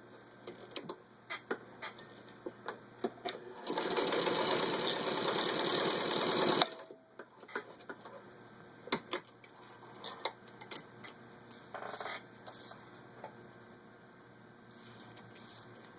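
Singer 15-90 heavy-duty sewing machine stitching through four layers of vinyl upholstery in one fast run of about three seconds, its stitches in a rapid, even pulse. The run ends with a sharp knock. Scattered clicks and taps come before and after it, and a short second burst of stitching comes near the end.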